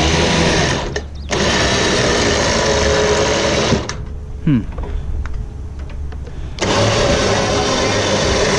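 Electric winch motor running under remote control in bursts. It stops briefly about a second in, runs again, cuts off near the middle, and restarts loudly about two-thirds of the way through.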